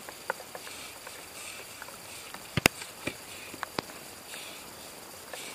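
Scattered sharp thuds of footballs being struck, the loudest a close double thud about two and a half seconds in, over a faint steady hiss.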